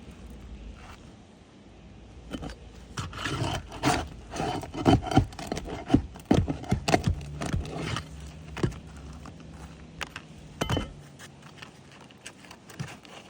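Asphalt roof shingles being pried up and handled: a run of scraping, rubbing and sharp knocks, busiest in the middle of the stretch, then dying away to a few light ticks.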